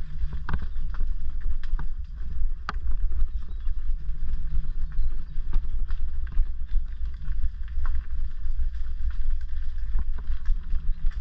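Orange Gyro mountain bike ridden down a rough lane of loose stones and gravel: a steady low rumble of tyres and air, with frequent sharp clicks, knocks and rattles as the bike jolts over stones.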